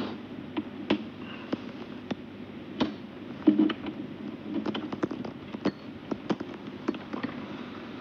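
Game stones clicking on a board: sharp, irregular clicks as pieces are placed and handled.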